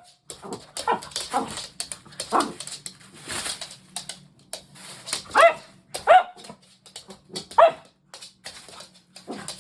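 Cavalier King Charles Spaniel giving a string of short, high barks and yelps, the three loudest in the second half, with sharp clicks in between.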